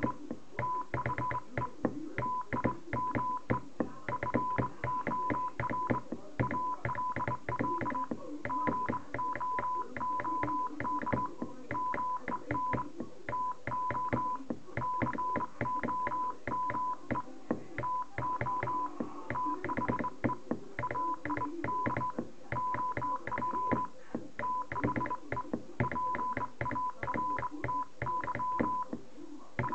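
Morse code hand-sent on a Royal Navy Admiralty Pattern 7681 straight key: a steady high sidetone beeping in short dots and longer dashes, with the key's lever clicking at each press and release.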